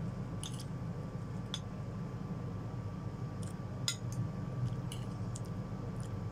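Metal fork and spoon clinking and scraping against a ceramic plate while twirling instant noodles: a scattering of short clinks over a steady low hum.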